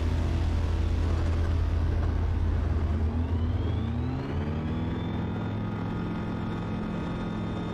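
Kitfox light aircraft's engine and propeller running steadily at low power. About three seconds in, its pitch rises over a couple of seconds as the throttle is opened to go around for another landing attempt, then it holds steady at the higher power.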